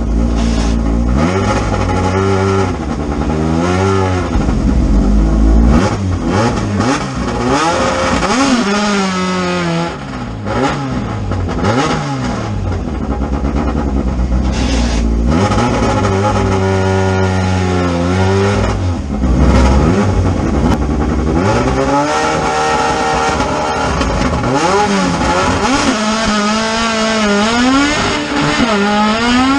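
Drag-racing car engines revving hard over and over, the pitch sweeping up and down, with two or more engines overlapping at times.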